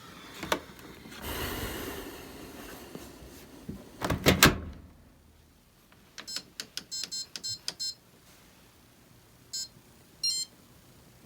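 Maytag laundry machine control panel beeping as its buttons are pressed: a quick run of about a dozen short high beeps, then two single beeps near the end. Before them a rustle and a couple of loud clunks about four seconds in.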